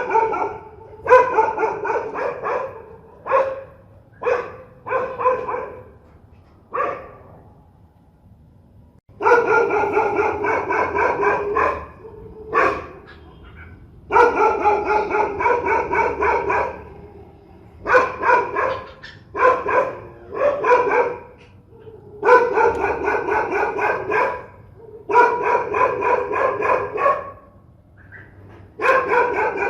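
Dogs barking fiercely, in single barks and short runs, with rapid volleys of barks lasting two to three seconds separated by short pauses.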